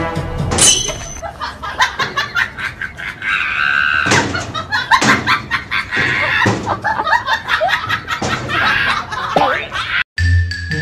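A wooden stick knocking and scraping against a door frame again and again as a dog tries to carry it through crossways, with people's voices and laughter.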